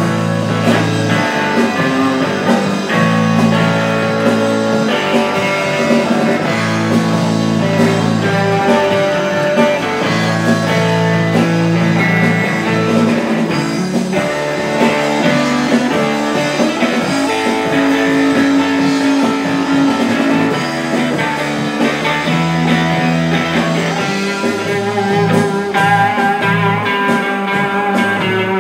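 Instrumental break of a rock song: guitars playing over sustained low notes that change every few seconds, with no singing.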